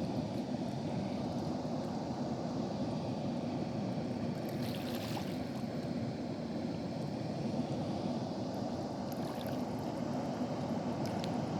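Water released at a river dam, rushing and splashing steadily with an even, light sound, and a brief higher hiss about five seconds in.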